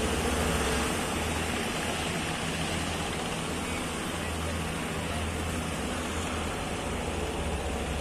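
Rushing surf in a river-mouth channel, with the steady low drone of motorised wooden fishing boats running through it.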